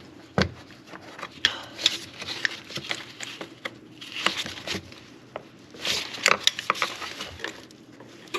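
Hands working a brittle plastic PCV hose connector loose from the engine: irregular plastic clicks, taps and rubbing, with a few sharper clicks.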